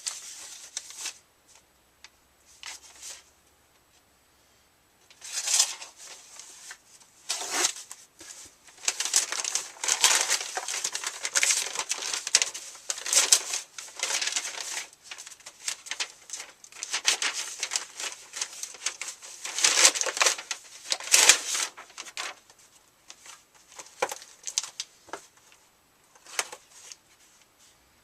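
Packaging being handled and torn open: irregular crinkling and rustling of plastic and paper, busiest through the middle with a few sharper tearing bursts.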